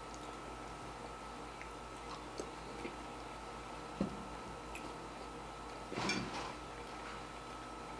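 Quiet mukbang eating sounds: faint chewing and biting with a few small clicks over a steady low hum, and one brief louder noise about six seconds in.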